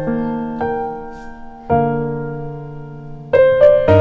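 Background music: a slow piano melody, single notes struck and left to ring and fade, with a quicker run of notes near the end.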